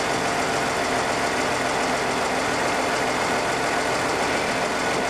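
Tractor engine running steadily under hydraulic load while it drives the boom mower's telescoping extension back in.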